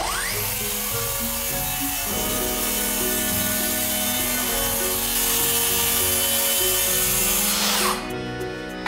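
Circular saw spinning up with a rising whine, cutting across a wooden board, and winding down near the end. Background music plays underneath.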